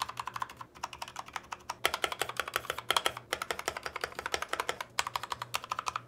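Fast typing on a stock Redragon K617 Fizz mechanical keyboard with its original gray-and-white keycaps: a dense, uneven run of key clacks, many a second.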